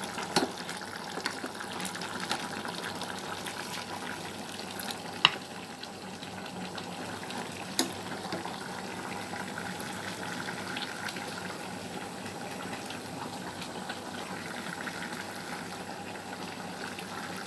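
Squid adobo sauce simmering in the pan, a steady bubbling hiss. A few sharp clicks of a utensil against the dishes come through it, the clearest about five seconds in and near eight seconds.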